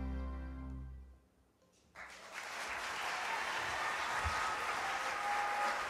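The music's held final chord fades away in about a second, followed by a short hush. An audience then starts applauding about two seconds in and keeps clapping steadily.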